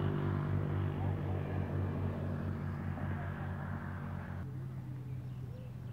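An engine running at a steady speed, slowly growing fainter. About four and a half seconds in, the higher noise drops away and only a single low drone is left.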